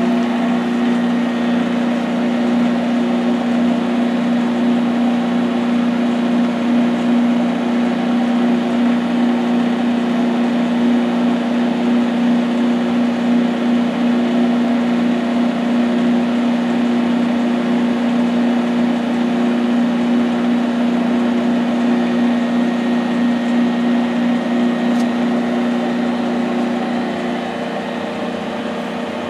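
Cincinnati Milacron 220-8 centerless grinder running with its wheels turning: a steady machine hum with one strong tone, a little quieter near the end.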